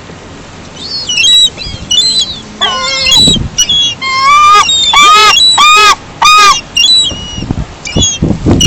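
Several gulls calling loudly over one another: high squeals mixed with a quick run of harsh, arched calls through the middle.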